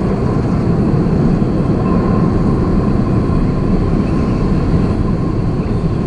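Boeing 747 freighter's jet engines during the landing rollout just after touchdown: a steady, loud, deep rumble with a faint whine.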